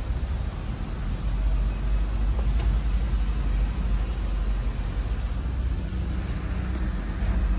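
A pickup truck's engine idling, a steady low rumble heard from inside the cab with the doors open.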